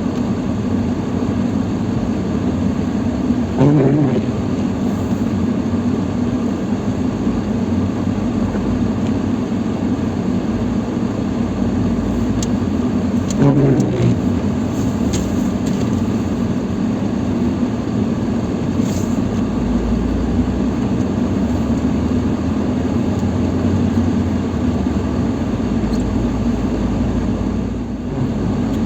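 Lada Niva Travel's engine running steadily while the car drives through snow, with the engine note swelling briefly twice, about four and about thirteen seconds in.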